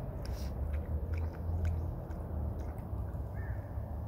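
A dog lapping water, a run of small wet clicks, over a low steady rumble. A bird chirps twice near the end.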